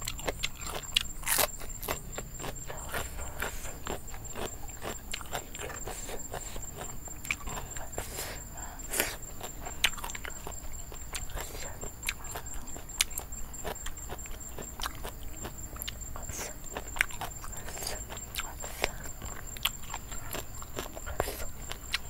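A person eating at close range: irregular crisp crunches and mouth sounds of chewing fresh raw vegetables and spicy seafood salad.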